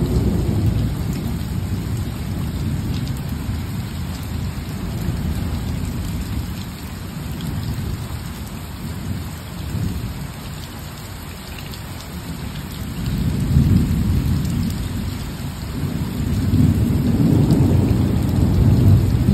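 Rain falling steadily with thunder rumbling low. The rumble eases around the middle and rolls up again twice in the last few seconds.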